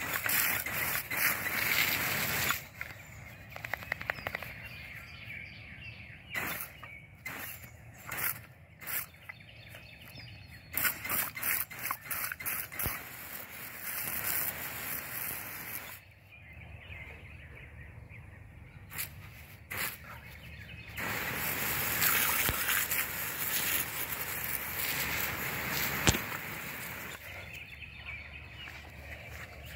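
Garden hose spray nozzle hissing as water is sprayed onto the grass, in on-and-off bursts: a spray at the start, a run of short squirts, and a longer spray near the end.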